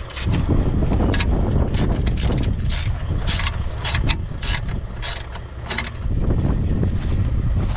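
A hand ratchet clicks in quick, irregular runs as bolts are run in, over a steady low rumble.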